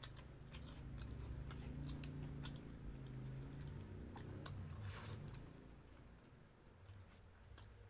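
Close-miked chewing and biting of food, with small wet mouth clicks and smacks scattered throughout.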